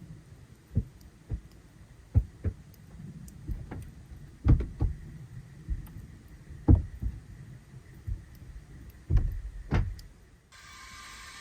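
Irregular dull thumps and knocks, a dozen or so, spaced unevenly, the loudest around the middle. About a second before the end they give way abruptly to a steady hiss.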